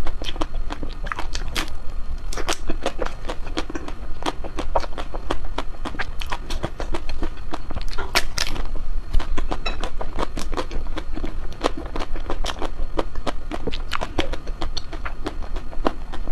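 Close-miked eating and chewing of ice cream: quick wet mouth clicks and smacks several times a second, with a louder bite or crunch about eight seconds in. A low steady hum lies underneath.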